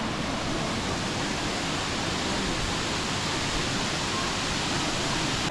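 Waterfall rushing with a steady, unbroken noise.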